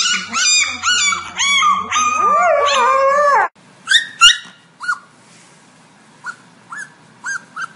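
A husky puppy and an adult husky-type dog howling together in wavering, bending cries that stop abruptly about three and a half seconds in. Then a puppy gives a string of short, high yips.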